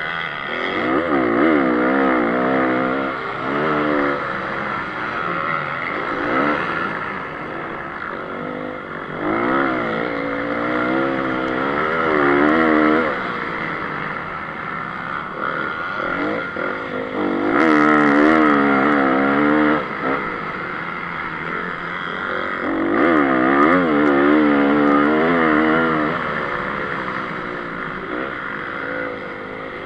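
2014 Honda CRF 250's four-stroke single-cylinder engine racing, revving up and backing off in repeated surges of rising and falling pitch as the bike accelerates out of corners, heard close up from the rider's onboard camera.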